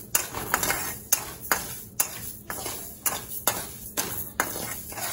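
Metal ladle scraping and clinking against an aluminium kadai as raw rice is stirred and roasted in it, about two ringing knocks a second.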